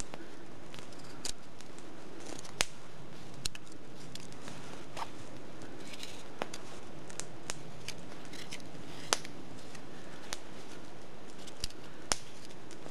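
Hook knife (spoon knife) shaving out the bowl of a green alder spoon: about a dozen short, crisp cuts at an uneven pace, roughly one a second, over a steady faint hiss.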